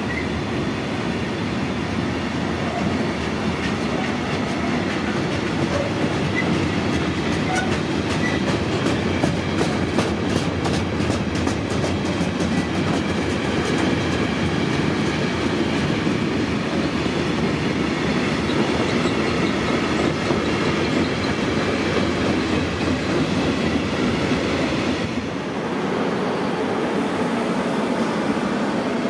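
A train passing close by, its wheels rumbling on the rails. A run of rapid regular clicks, wheels crossing rail joints, comes about a third of the way in, and the rumble drops back a little near the end.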